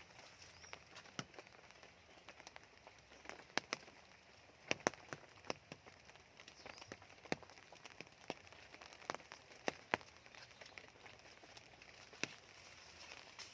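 Scattered raindrops dripping onto surfaces after heavy rain: irregular single taps at uneven intervals over a soft steady hiss.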